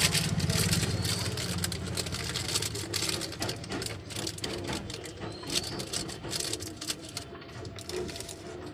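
A plastic bag rustling and crinkling in the hands, with irregular crackles that thin out toward the end. A low hum is strong for the first couple of seconds, then fades.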